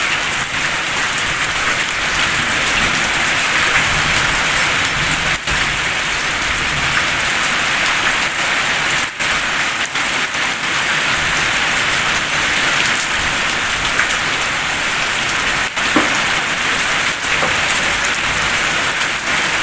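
Heavy rain falling steadily on clay-tiled roofs and a wet concrete yard: a dense, even hiss with no let-up.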